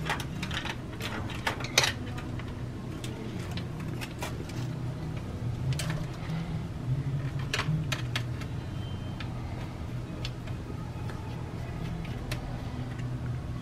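Scattered small clicks and taps of tools and parts on a MacBook Pro laptop being taken apart, the sharpest about two seconds in, over a steady low hum.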